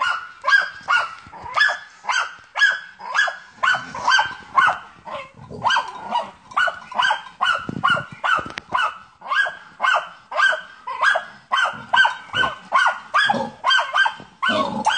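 German hunting terrier (Jagdterrier) baying at a wild boar: a steady, unbroken run of rapid barks, about two to three a second.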